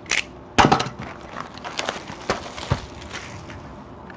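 Cardboard box of trading-card packs handled on a table: a cluster of sharp knocks a little over half a second in, then scattered taps and light rustling.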